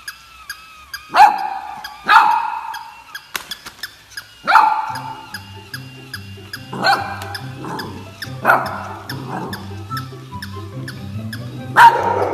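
Battery-operated plush toy dog barking several times at uneven gaps, a short sharp bark each time.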